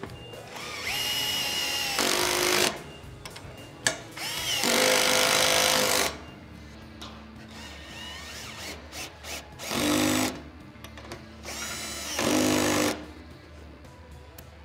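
Milwaukee cordless drill spinning a 13 mm socket to run down the roof rack's mounting bolts, in four bursts of motor whine, each a second or two long.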